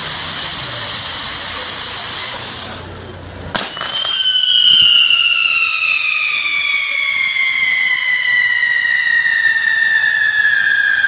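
Ground firework fountains hissing as they spray sparks, dying away about three seconds in. A sharp crack follows, then a whistling firework fountain starts one long, loud whistle that slides slowly down in pitch.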